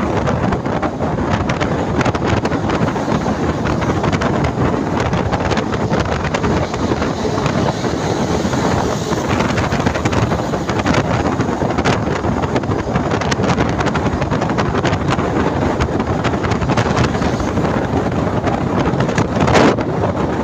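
Wind rushing over the microphone from the window of a moving bus, over the steady rumble of the bus and the road. A short, louder gust comes near the end.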